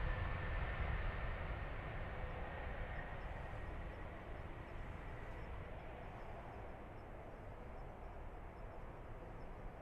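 Twin-engine jet airliner on its take-off run and climb-out: a steady engine rumble with a faint high whine, fading gradually as the aircraft climbs away.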